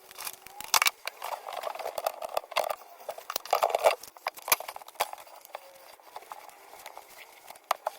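Irregular clicks and clattering knocks, loudest just under a second in and around four seconds in, thinning out in the second half.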